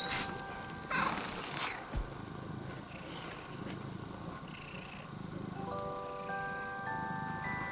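Domestic cat purring, a low steady rumble, with a brief louder noise about a second in. Gentle background music with sustained notes plays over it, returning more fully in the second half.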